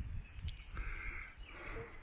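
Outdoor ambience: faint bird chirps over an uneven low rumble, with a single sharp click about half a second in.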